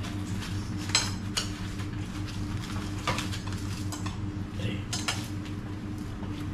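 Dishes and cutlery clinking now and then as people eat at a table, a few separate knocks and chinks with the sharpest about a second in, over a steady low hum.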